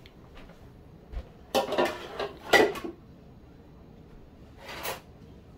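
Kitchen clatter of dishes and pots being handled: a cluster of knocks and clinks about a second and a half to three seconds in, then a short swish near the end.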